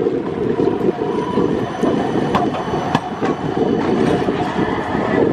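A tram passing close by, its wheels rumbling on the rails, with several sharp clanks as they run over track joints and points.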